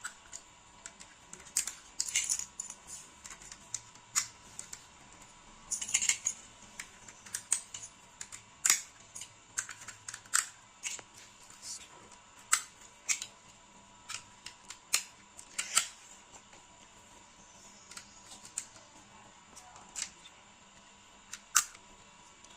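Irregular sharp plastic clicks and snaps, some in quick clusters, as Snap Circuits parts are pressed onto and handled on the plastic base grid.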